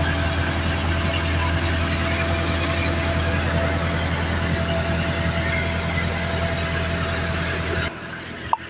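An engine running steadily at idle, a low steady hum that cuts off abruptly near the end, followed by a few short clicks.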